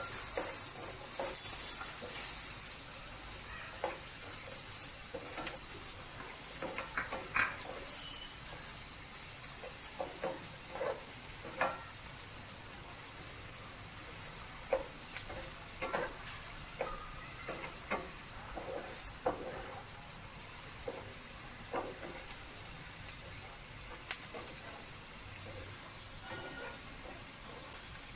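Chopped onions sizzling in hot oil and butter on a medium-to-high flame, being sautéed until they turn golden. A slotted spatula stirring them scrapes and taps against the pan at irregular moments over the steady sizzle.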